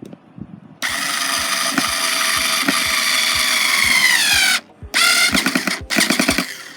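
Cordless screwdriver motor driving a screw: a steady whine for about four seconds that drops in pitch as the screw seats and the motor slows under load, then stops. It is followed by a few short bursts as the trigger is pulsed.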